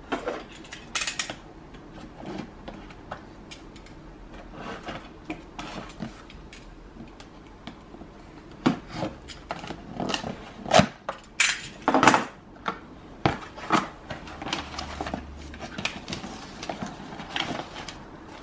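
Cardboard shipping box being opened by hand: a box cutter slitting the packing tape, the flaps scraping and knocking, and paper rustling near the end. Irregular sharp scrapes and knocks, loudest and thickest between about nine and thirteen seconds in.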